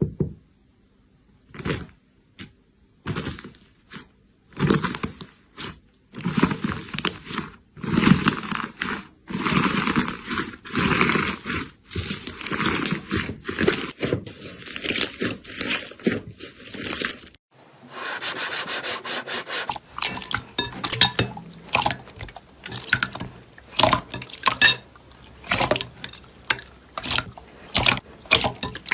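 Slime being squished and worked by hand: irregular wet squelches and small sticky pops, coming faster in the second half.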